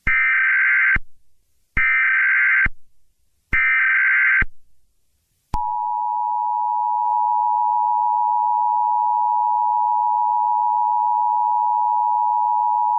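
Emergency Alert System SAME header: three short bursts of warbling data tones, each about a second long with brief gaps. About five and a half seconds in, the steady two-tone EAS attention signal starts and holds.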